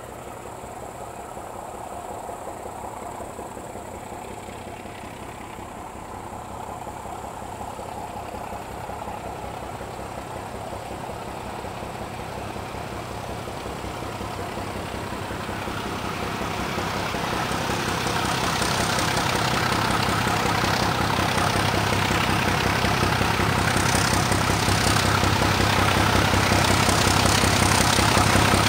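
Class 751 diesel locomotive with no exhaust silencer, its six-cylinder ČKD engine under load as it hauls a freight train up a long grade. The steady, pulsing engine sound grows much louder as the train approaches.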